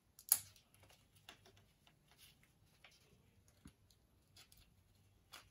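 Light handling sounds of paper loops and plastic drinking straws being adjusted by hand: soft rustles and small scattered clicks, with one sharper click about a third of a second in.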